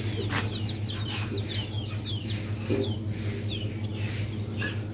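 Chicks peeping: short, high cheeps repeated two or three times a second over a steady low hum.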